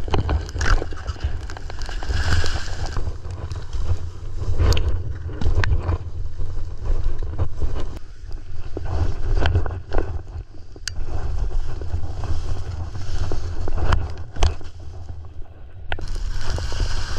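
Skis carving and scraping over packed, groomed snow, with sharp edge scrapes on the turns. Wind rumbles across the action-camera microphone.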